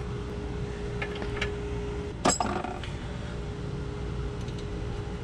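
Light metallic clinks of a hand tool on a new tie rod end's castle nut as it is lined up with the cotter-pin hole, with one louder, ringing clink about two seconds in, over a steady hum.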